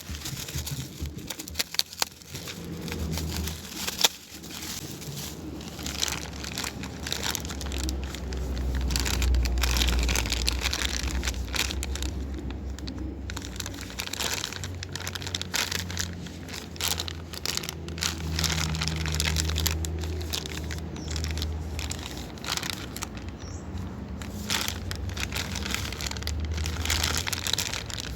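Packaging being handled and opened: irregular crinkling and rustling with scattered clicks and taps, over a low steady hum.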